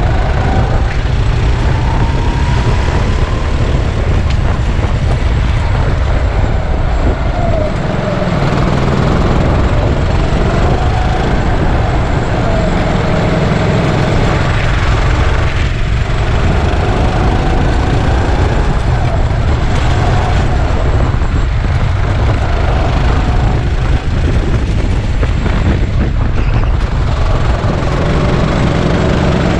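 Go-kart engine running on track, its pitch rising and falling again and again with the throttle, over a loud, steady low rumble.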